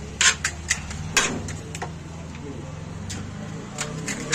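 Food-handling sounds at a street stall: a scattering of sharp clicks and taps as crisp puri shells are handled and filled, the loudest in the first second and a half, over a steady low hum.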